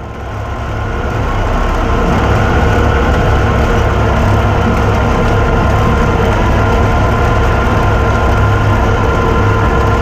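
Tractor-drawn Grimme potato harvester running: a steady, heavy engine drone with a few steady whining tones from the machinery, fading in over the first couple of seconds.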